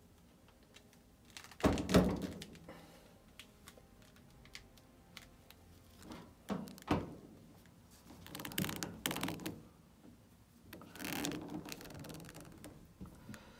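Handling noise from a sixth-scale collectible action figure being picked up and moved by hand: a few knocks and thuds, the loudest about two seconds in, with softer knocks and rustling later.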